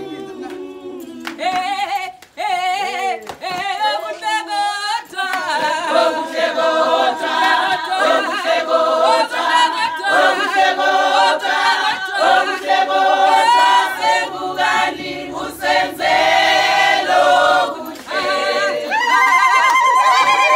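A group of people singing together unaccompanied, several voices at once, growing fuller and louder about five seconds in, with handclaps keeping time.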